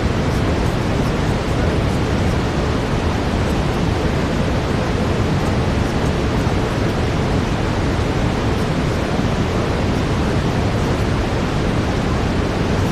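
Steady brown noise: an even, unchanging deep hiss, heaviest in the low end.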